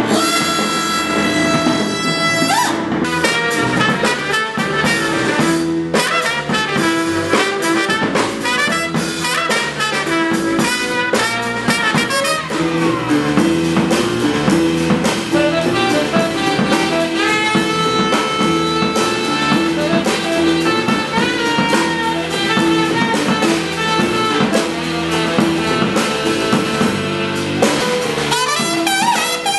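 Live jazz quintet playing: saxophone and trumpet over piano, double bass and drum kit. It opens on a long held horn note, then moves into a busy passage of quick notes.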